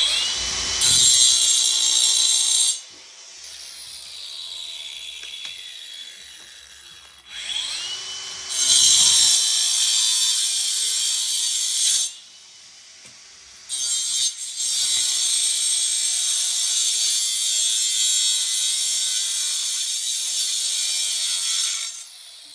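Power grinder grinding through steel bolts on an old R22 compressor's shell, in three long bouts: each time the motor whines up to speed and the disc bites into the metal with a harsh, hissing grind, with quieter pauses between.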